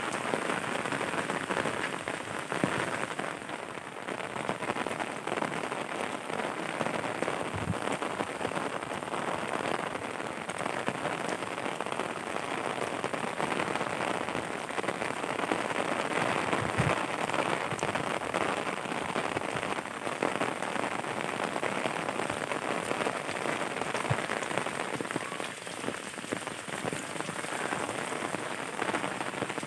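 Heavy rain falling steadily and pattering on surfaces, with scattered drops ticking nearby.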